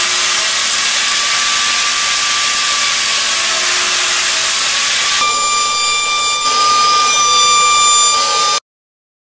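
Power tools running: a table saw cutting cedar, a loud steady whine with hiss. About five seconds in it changes to a router on a router table, with a steadier high whine, until the sound cuts off suddenly near the end.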